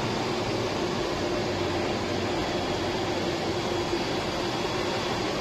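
Steady cockpit noise of a Beriev Be-200 jet amphibian in flight: engine and airflow noise with a faint steady hum, on approach to scooping water from the sea.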